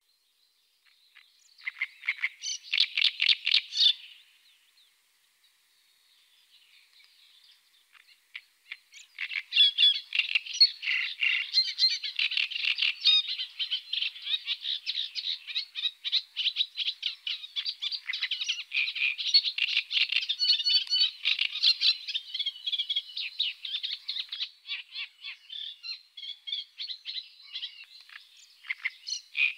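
Great reed warbler singing: a harsh, fast, rhythmic chattering of repeated notes, a short phrase about two seconds in, then almost unbroken song from about nine seconds on.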